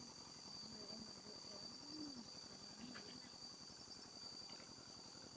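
Steady, faint insect chorus: a continuous shrill, high-pitched drone of crickets or cicadas that holds the same pitch throughout.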